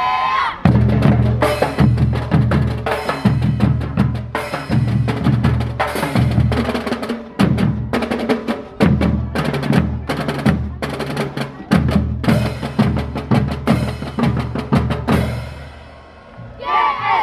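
Children's marching percussion section playing a fast drum cadence: bass drums, snare drums and crashed hand cymbals. The drumming starts under a second in and stops about sixteen seconds in.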